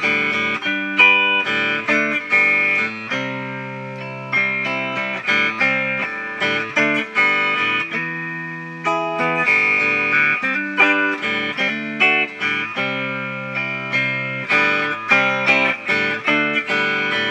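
Instrumental passage of a song: a steady run of picked guitar notes, each struck and dying away, with no singing.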